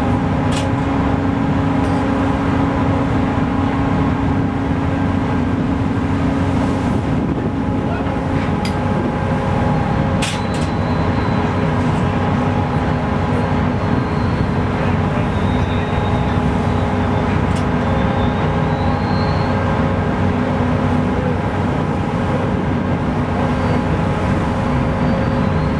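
Research vessel's machinery running steadily on the aft deck: a loud, even drone of several steady hum tones over a low rumble. One of the strongest hum tones drops out about eight seconds in, and a few faint clicks sound over it.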